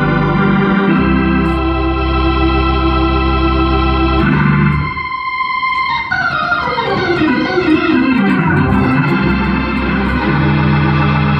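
Hammond organ playing gospel: full held chords over bass notes, a short break about four and a half seconds in, then a fast run of notes falling down the keyboard before the held chords return.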